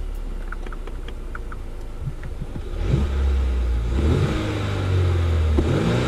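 Mercedes-Benz E 300 S213's turbocharged four-cylinder petrol engine running quietly at first, then revving up as the car accelerates. The engine note climbs about three seconds in, again a second later, and once more near the end.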